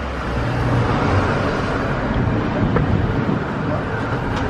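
City street traffic: cars driving past, a steady rumble of engines and tyres.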